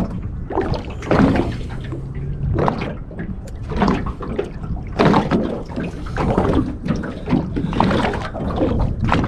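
Water slapping and sloshing against the hull of a small boat in uneven surges, roughly one a second.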